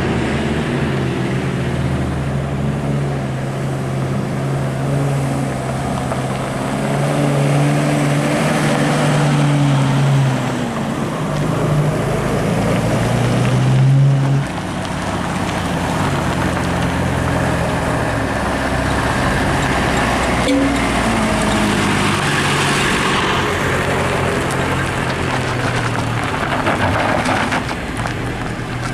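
Vehicle engines running at low speed, their revs rising and falling, with a sudden drop in level about fourteen seconds in.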